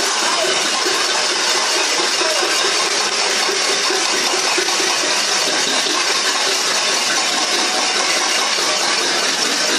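Loud, steady din of a protesting crowd, many voices and noises at once with no single speaker standing out.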